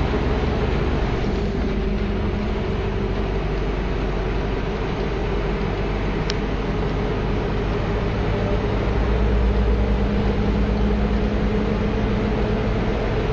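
Scania V8 600 hp truck engine droning steadily at motorway cruising speed while pulling a 36-tonne rig, heard from inside the cab with road and wind noise. The low drone swells a little about two-thirds of the way through.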